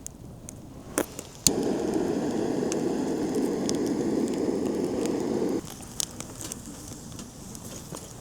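Two sharp clicks, then a steady crackling noise that cuts in abruptly, holds for about four seconds and stops abruptly.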